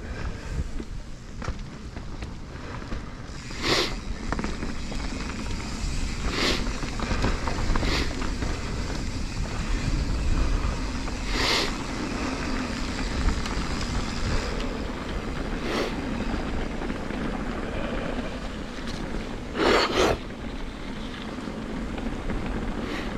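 Mountain bike riding down a dirt trail: a steady rumble of tyres rolling and wind on the microphone, broken by about six short clatters from the bike going over bumps.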